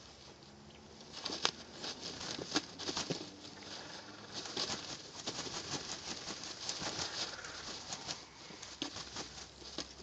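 Tom turkey mating a hen, his wing feathers flapping and rustling as he treads on her back: a dense run of short pattering strokes that starts about a second in.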